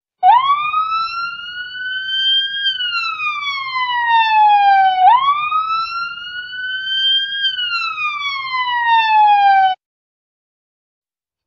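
Ambulance siren sound effect: a wail that rises slowly and falls back, twice, over a faint low rumble, then cuts off suddenly near the end.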